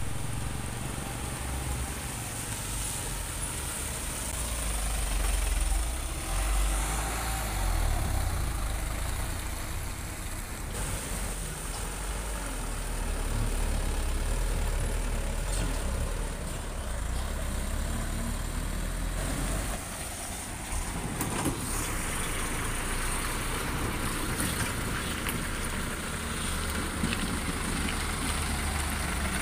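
Light diesel trucks driving past on an uphill road, their engines running under load with a steady low rumble. The sound changes abruptly a few times as different trucks pass.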